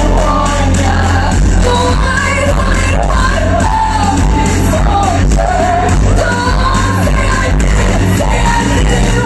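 Loud music with singing over a heavy bass line.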